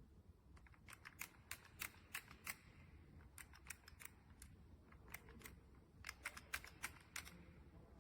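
Faint, irregular light clicks and ticks from a retractable ratchet strap's plastic housing and metal parts being handled, a few a second at uneven spacing.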